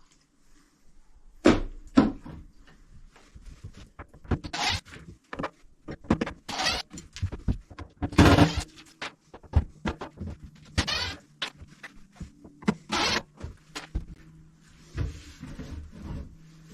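Irregular knocks, thunks and scrapes of hands-on demolition work, with several louder clattering bursts.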